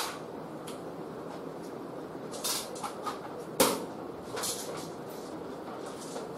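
A few short knocks and rustles over a steady room hiss. The loudest knock comes about three and a half seconds in, with smaller ones around it.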